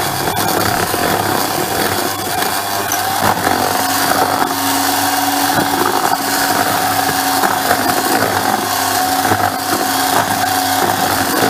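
A small electric motor whirring steadily with a whining tone, and a lower second tone joining about four seconds in.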